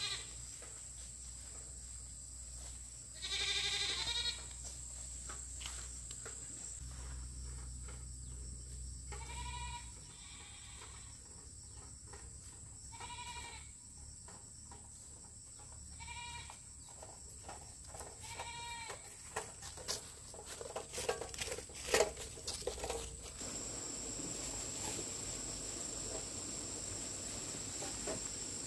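An animal calling over and over, a short call every few seconds, the longest lasting about a second. A run of clicks and knocks comes a little past the middle.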